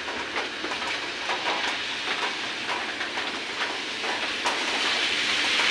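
Rain on a wet road, a steady hiss with scattered faint ticks; near the end the hiss swells as a vehicle's tyres come along the wet road.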